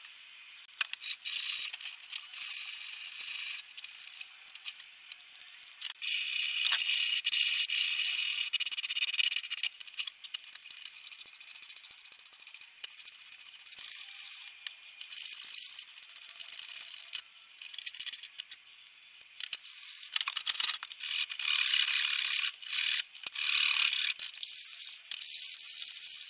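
A metal hand file rasping back and forth on the wooden tote of an old hand plane, stripping the old finish. It comes as runs of hissy scraping strokes broken by short pauses.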